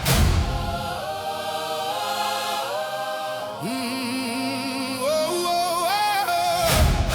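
Intro of a Christian rap track: wordless choir-like voices holding sustained, wavering notes, with a deep booming hit at the start and another near the end.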